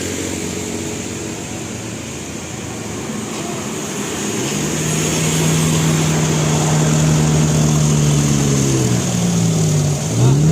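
Bus engine running and pulling away, growing louder. Its steady note drops near the end, then climbs again.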